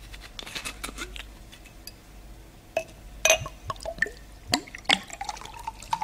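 Glass whisky bottle and drinking glass clinking and knocking in a string of sharp taps, the loudest about three seconds in, then whisky poured into the glass near the end.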